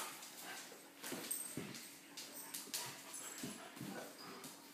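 Dogs playing on a hardwood floor: faint, scattered scuffles and clicks of paws and nails as they move around.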